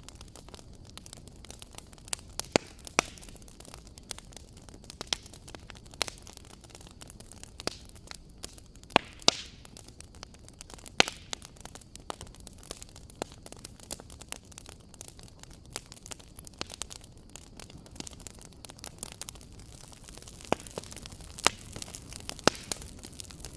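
Wood fire crackling in a fireplace: irregular sharp pops and snaps over a low steady hiss of burning, with a few louder pops about nine and eleven seconds in and a cluster near the end.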